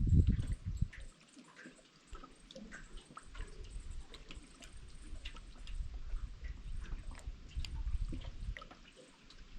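Water dripping and lapping in small, scattered splashes over a low, irregular rumble. The rumble drops away about a second in and builds again from about three seconds.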